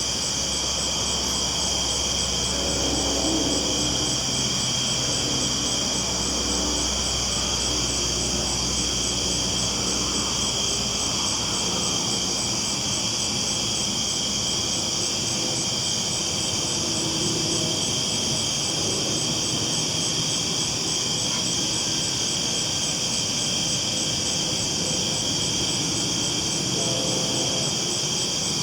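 Steady rolling rumble of a train on the tracks, with short tones from the wheels and rails, under a continuous high chorus of crickets.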